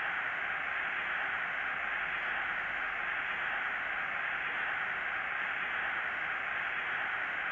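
Stadium crowd noise from a televised football match, a steady, even hiss-like wash with no single shouts or whistles standing out, heard through a TV's speaker.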